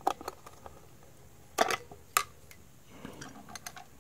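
Small screwdriver and the plastic battery door of a toy drum kit's base clicking and scraping as the screw is backed out and the cover is lifted off. Light taps at first, two sharper clicks about a second and a half and two seconds in, and a soft scraping near the end.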